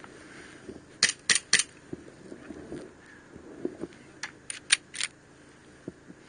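Sharp mechanical clicks from a handheld airsoft pistol: three quick clicks about a second in, then four more between about four and five seconds.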